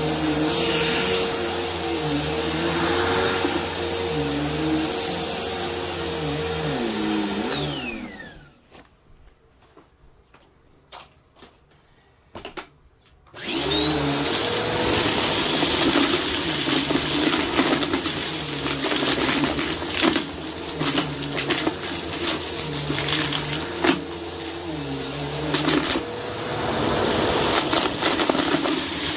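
Bissell upright vacuum running steadily over a shag rug. It is switched off about seven seconds in and its whine falls away, leaving a few soft clicks. It is then switched back on and spins up again, crackling and crunching as it sucks up shredded paper and sequins.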